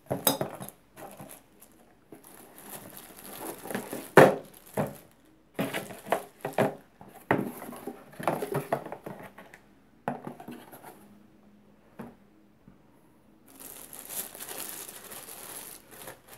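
Clear plastic packaging bags crinkling and rustling as the parts are unpacked from a cardboard box, with a few sharp knocks as pieces are handled and set down, the loudest about four seconds in. A long stretch of crinkling comes near the end.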